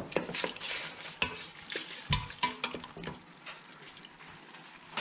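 Wooden spoon stirring diced raw pork shoulder with a little water in a stainless steel pot, in a run of irregular wet scrapes and knocks against the pot.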